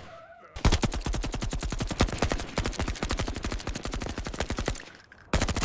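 Machine-gun fire sound effect: a sustained rapid burst of shots lasting about four seconds, starting half a second in, then a second short burst near the end.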